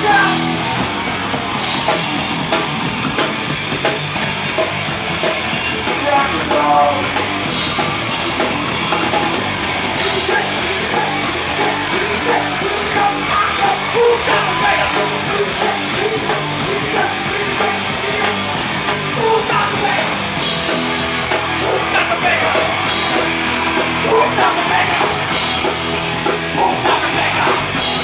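Live rock band playing a loud, hard-driving punk-metal song, with a full drum kit and singing.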